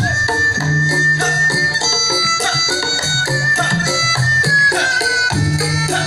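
Kendang penca ensemble playing the accompaniment for pencak silat: a tarompet (shawm) plays a held, bending melody over steady kendang hand-drum strokes.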